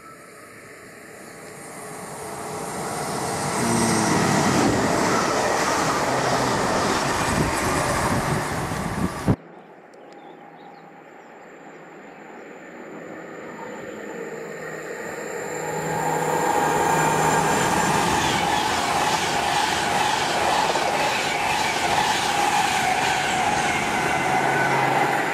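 Two electric trains passing in turn, with a sudden cut between them. First a Class 350 Desiro electric multiple unit approaches and runs past, its rumble of wheels on rail building to a loud rush. Then a Class 390 Pendolino approaches and passes, its rumble rising again to a loud rush with a steady high tone over it.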